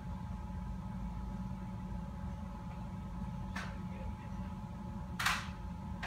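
Steady indoor room hum with faint steady tones, like a ventilation fan, and two short hissing rustles, a faint one past halfway and a louder one about five seconds in.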